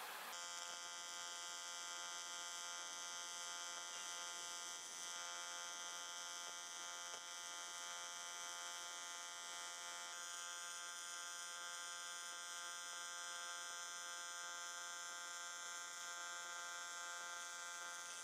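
TIG welding arc, a steady electric buzz that holds one even pitch without a break.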